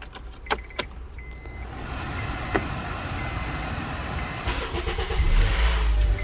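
2008 Honda Accord being started: a few sharp clicks from the key in the ignition, then the engine catches about two seconds in and runs steadily, the low rumble growing louder near the end.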